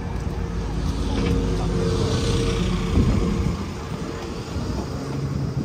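A motor vehicle driving past close by: a steady engine hum with tyre noise that swells to a peak about two seconds in and then fades away.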